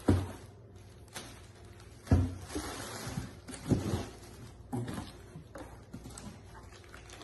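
Unpacking noises: rustling packaging and several dull thumps as a plastic-wrapped stainless steel pot and a cardboard box are handled and set down, the loudest thumps near the start and about two seconds in.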